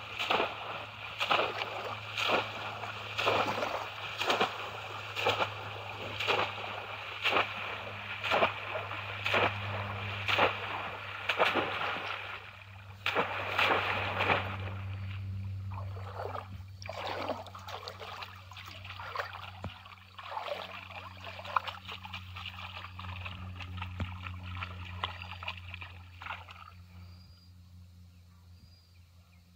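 Water splashing as bamboo polo fish traps are plunged again and again into shallow pond water, a steady run of splashes one to two a second. About halfway through the strokes become irregular sloshing and then fade to soft water sounds as the traps are held down and felt through by hand.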